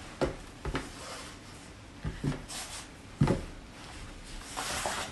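Strips of cut T-shirt fabric being handled and slid over a tabletop: soft rubbing with a few light knocks of hands on the table, the sharpest a little past three seconds in. A short breathy rush comes near the end.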